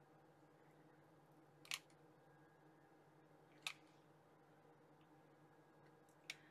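Near silence with a faint steady hum, broken by two short sharp clicks about two seconds apart and a fainter one near the end, typical of a mini hot glue gun's trigger being squeezed as glue is fed into a silicone mold.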